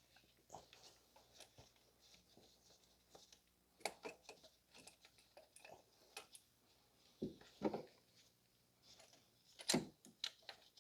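Faint, scattered clicks and knocks of tools and engine parts being handled, with louder clacks about four, seven and ten seconds in.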